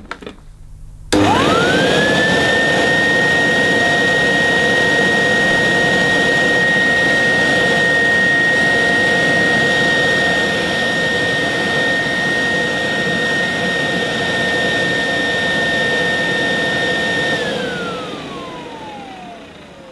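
Vintage Electrolux 170 vacuum cleaner motor switched on about a second in, spinning up within a second to a steady high whine, then switched off near the end and winding down with falling pitch. The motor sounds okay.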